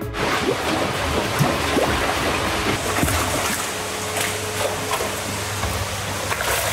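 Water splashing and churning in a tilapia tank as a hand net is swept through it and fish thrash at the surface, with a steady low hum running beneath.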